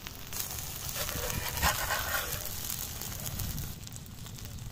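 Egg-white omelette frying on a hot iron griddle, a steady sizzling hiss that grows louder and harsher for about three seconds in the middle.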